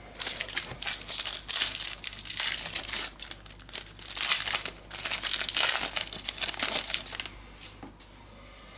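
A trading-card booster pack wrapper being torn open and crumpled: a run of crinkling and tearing that eases off briefly about three and a half seconds in and stops about seven seconds in.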